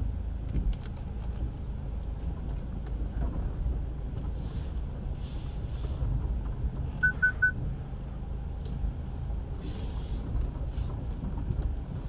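Four-wheel-drive vehicle driving a rough track: a steady low engine and road rumble with a few short bursts of hiss. Three quick electronic beeps about seven seconds in.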